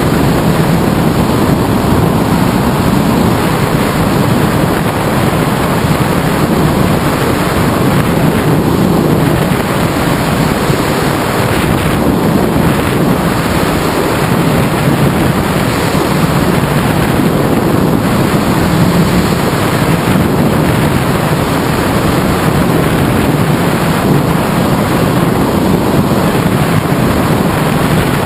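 Steady, loud wind noise: airflow rushing over a wing-mounted action camera's microphone on a tandem hang glider in flight.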